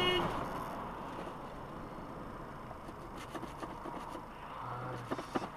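Low road and engine noise from a moving car, as picked up by a dashcam, fading over the first second, with a few faint clicks later on.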